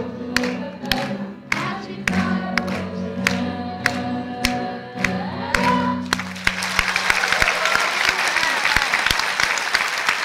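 The last bars of a song: a woman singing with piano and cello accompaniment over a sharp clap-like beat about twice a second, ending on a held sung note. About six seconds in the music stops and the theatre audience applauds.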